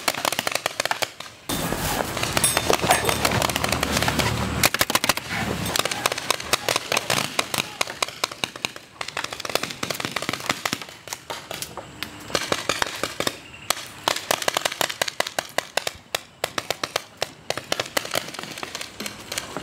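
Several paintball markers firing in rapid, irregular volleys, sharp pops coming many times a second with brief lulls.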